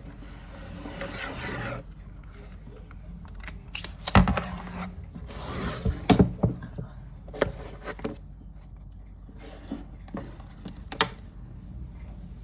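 Close handling noises: rubbing and scraping, broken by a series of sharp knocks and clicks, the loudest about four and six seconds in.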